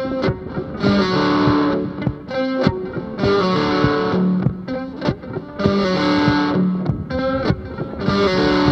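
Guitar music: a tune in four long held phrases, about a second each, with plucked notes between them.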